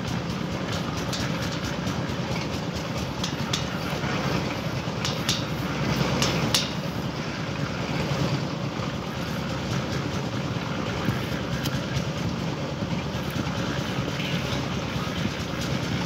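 Steady wind rumble on the microphone, with a few sharp clicks about five to six and a half seconds in.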